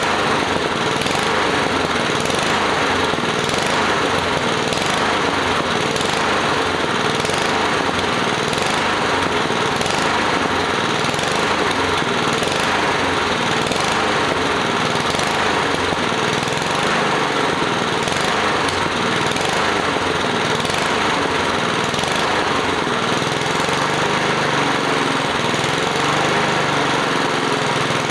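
Small single-cylinder petrol engine of a walk-behind rotary lawn mower running steadily, freshly serviced with new oil, fresh petrol and a new air filter.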